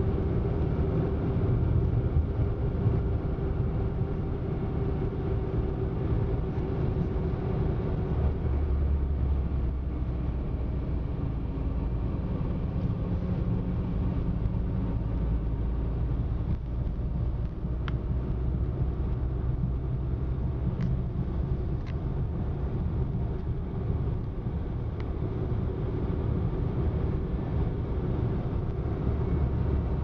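A car driving along an open road: steady engine hum and tyre and road noise, with the engine note shifting about eight seconds in.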